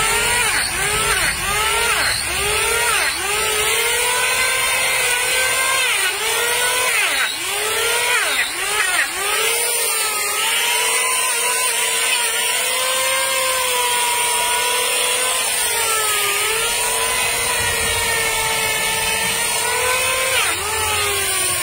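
Handheld electric planer running against a horse's hoof, trimming the hoof wall. Its motor whine dips in pitch each time the cutter bites, about once or twice a second for the first half, then holds steadier with slow wavers as the hoof is shaved.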